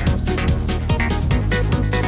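Electronic background music with a steady dance beat and a sustained bass line.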